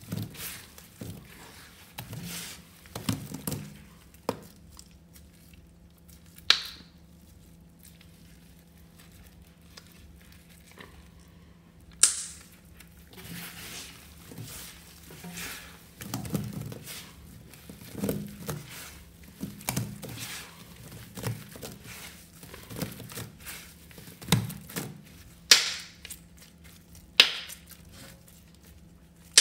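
Rubber-gloved hands squeezing and crumbling dry, powder-caked sponges, an irregular crunching and crumbling with a few sharp cracks.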